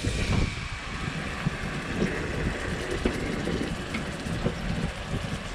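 Coral trout fillets sizzling in hot coconut oil in a frying pan, a steady hiss over a low rumble.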